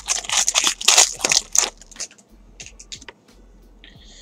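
Foil wrapper of a 2017 Topps Series 1 baseball card pack being torn open and crinkled by hand, a loud dense crackle for the first couple of seconds. A few soft clicks follow as the cards are handled.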